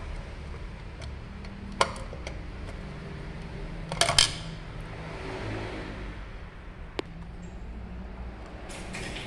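Small steel parts of a Mercedes 911 diesel injection pump clinking as they are handled and set down: a click about two seconds in, a short metallic clatter around four seconds, a sharp tick near seven seconds and another clatter near the end, over a steady low hum.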